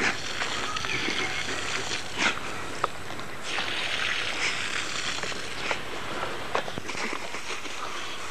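Water spraying from a garden hose: a steady hiss, strongest around the middle, with a few brief sharp sounds.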